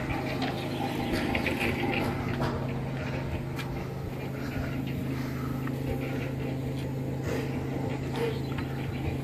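Building-site noise: a steady low machine hum, with scattered clicks and knocks of masons' tools and a few distant voices.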